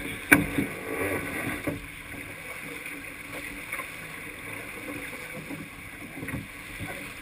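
Sailboat under sail: water rushing along the hull and wind on the microphone, with one sharp knock near the start.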